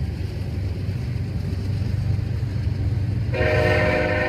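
Double-stack intermodal well cars of a freight train rolling past at a restricted 15 mph, a steady low rumble of wheels on rail. About three seconds in, a train horn sounds and holds.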